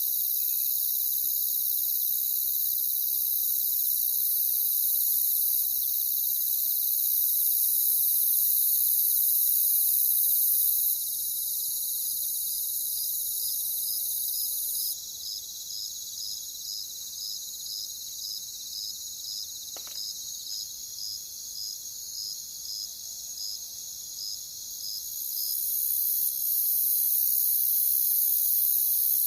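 Crickets trilling in a dense, steady, high-pitched chorus. Through the middle, one cricket's chirps stand out at about two a second. The shrillest layer fades about halfway through and swells back near the end.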